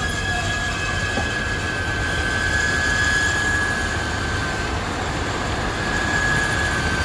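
Grain conveyor belt running and carrying paddy rice: a steady high-pitched squeal over an even rushing noise.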